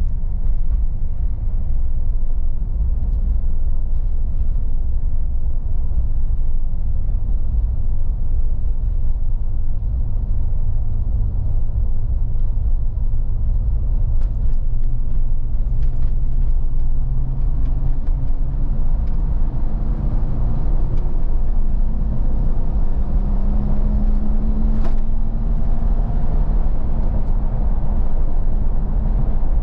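Inside the cabin of a 2018 Jeep Wrangler Sahara on the move: a steady low road and tyre rumble, and from about halfway a rising engine note as the Jeep accelerates.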